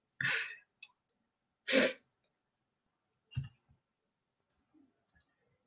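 Two short breathy sounds from a person, about a second and a half apart, then a low thump and two faint clicks.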